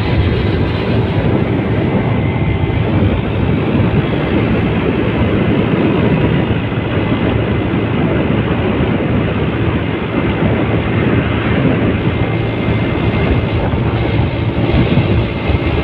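Motorcycle riding at a steady cruise, with engine hum and rushing wind and road noise as heard from on the bike.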